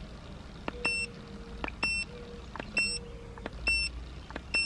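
Handheld CGSULIT OBD2 code scanner giving five short, high beeps about a second apart as its buttons are pressed to step through stored trouble codes, with faint clicks of the keys.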